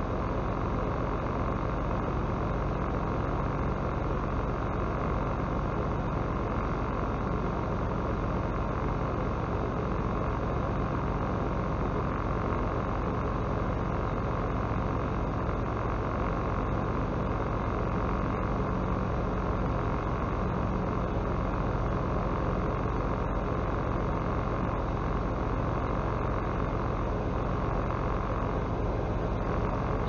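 Semi-truck's diesel engine and road noise heard inside the cab, a steady drone as the truck drives slowly in heavy traffic.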